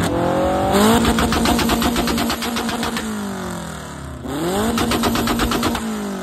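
Car engine revved and held on a two-step launch limiter: a steady high note chopped by rapid crackling pops. It climbs and holds about a second in for two seconds, drops back, then climbs and holds again past four seconds before falling away.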